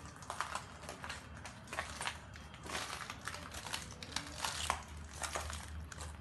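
Irregular crunching and crackling of footsteps over broken debris on a floor, with a low steady hum underneath.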